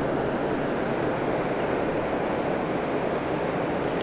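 Steady rushing of a fast, swirling river current and rapids.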